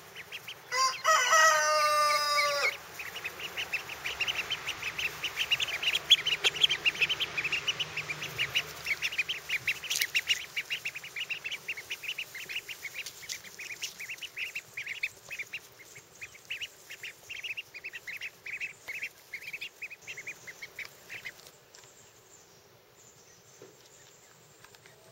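Runner ducklings about two and a half weeks old peeping: a fast run of short, high peeps, several a second, that thins out and stops near the end. About a second in, a loud drawn-out call with a clear pitch lasts about two seconds.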